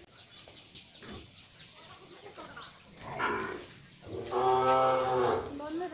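A cow mooing: one long, steady, low moo a little over four seconds in, with a shorter, breathier sound just before it.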